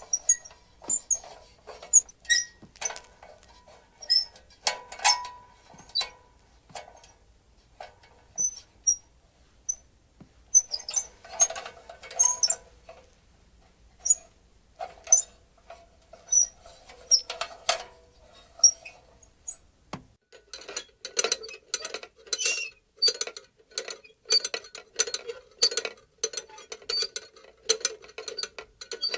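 Metal lantern being moved and shaken, its metal parts squeaking and clinking. The squeaks come irregularly at first, then settle into a quicker, even run from about twenty seconds in.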